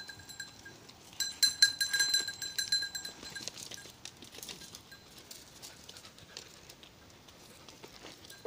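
Small bell on a sheep's collar jingling in a quick run of strikes for about two seconds, starting about a second in, then only faint rattles as the animal moves.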